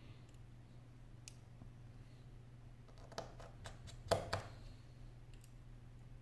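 Small clicks and taps of fingers and a precision screwdriver working on the internal parts of an opened iPhone 6: a few faint ticks, then a quick run of clicks about three seconds in, the loudest just after four seconds. A low steady hum sits underneath.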